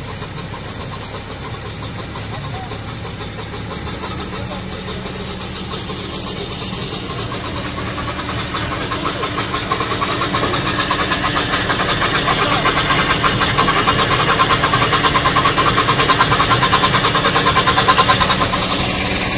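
Farm tractor's diesel engine running at a steady idle, growing louder over the second half with a fast, even clatter.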